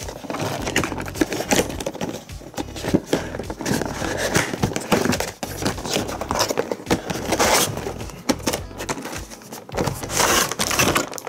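Cardboard toy box and clear plastic tray being handled and opened: irregular scraping, tapping and crinkling as the box is worked open and the plastic tray slid out.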